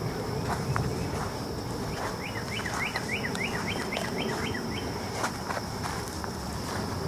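Footsteps on a dirt path over a steady, high insect drone, with a songbird singing a quick run of about ten repeated notes in the middle.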